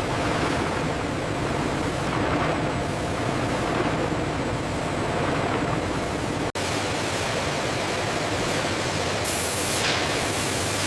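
Steady factory machinery noise, an even dense hiss and rumble. It breaks off for an instant about six and a half seconds in, and a short sharper hiss comes near the end.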